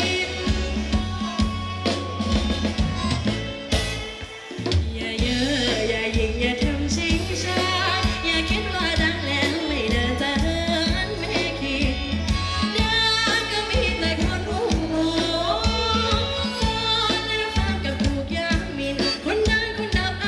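Thai ramwong dance music from a live band, with a singer's voice over a steady bass beat; the music thins briefly about four seconds in.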